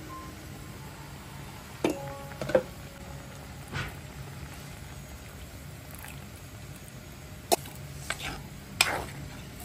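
Clay cooking pot being handled: the clay lid clinks as it is lifted off, thick coconut milk is poured in, and a spoon knocks against the clay pot a few times while stirring, over a steady low hum.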